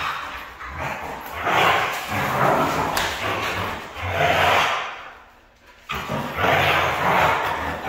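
Two Siberian huskies play-fighting, growling at each other in rough bursts of about a second, with a brief lull about five seconds in.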